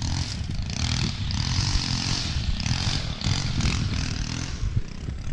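An engine running steadily, with a rushing hiss over it.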